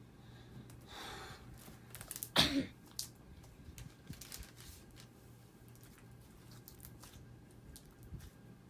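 A person coughs once, short and sharp, about two and a half seconds in, with a softer breathy rasp a second before it. Faint small clicks and crackles of slime being handled come and go.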